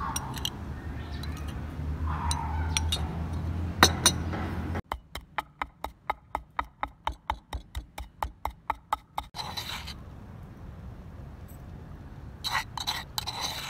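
Wooden pestle pounding pepper in a wooden mortar, steady sharp strokes about four a second for about four seconds. Near the end, a metal spoon clinks and scrapes as the ground pepper is scooped out.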